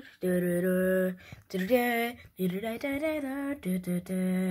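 A voice singing a tune in long held notes, with short breaks between them.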